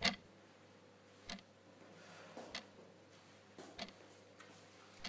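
Faint, irregular clicks and taps, about seven in five seconds, over a low steady hum.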